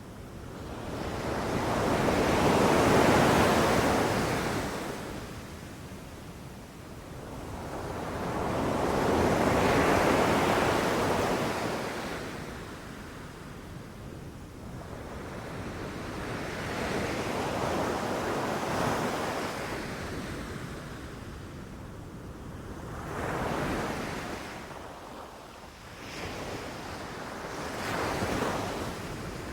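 Ocean surf on a beach: waves breaking and washing up the shore in slow surges several seconds apart, five in all, the first two the loudest.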